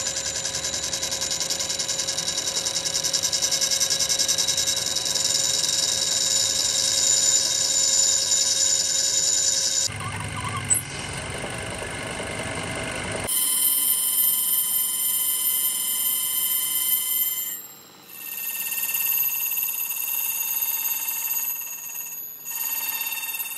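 Metal lathe turning a large steel part, the carbide tool cutting with a steady, high-pitched ringing squeal over the machine's running. The sound changes abruptly about ten and again about thirteen seconds in, and drops out briefly near eighteen seconds.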